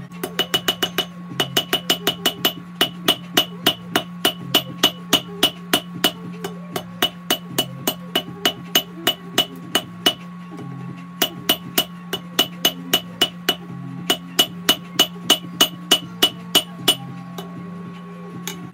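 Hand hammer striking hot Damascus steel on an anvil, about three ringing blows a second in runs broken by short pauses, as the paring knife blank is forged to shape. A steady hum from the gas forge runs underneath.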